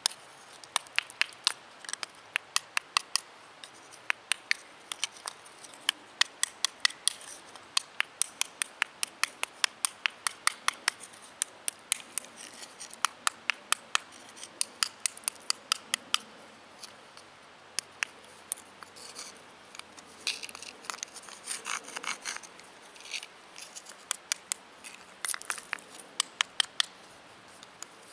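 Sandstone hammerstone knapping the edge of a piece of slate: sharp clicking taps, a few a second, in runs with short pauses, chipping flakes off to round the slate for a turkey call. About two-thirds of the way through the tapping gives way briefly to softer scraping of stone on stone.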